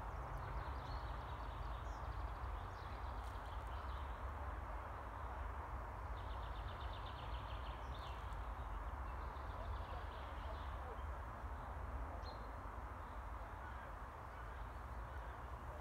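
Small songbirds chirping, with a quick trill about six seconds in, over a steady low rumble and outdoor background noise.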